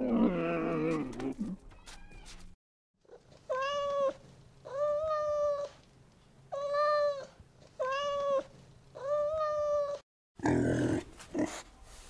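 Domestic cat meowing five times, evenly spaced, each meow under a second long. A horse's call trails off at the start, and pigs start grunting near the end.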